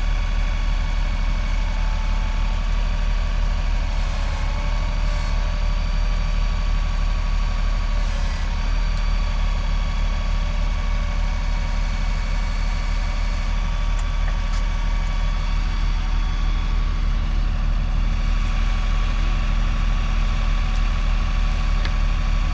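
A heavy engine running steadily at idle, with a faint steady whine over its low throb.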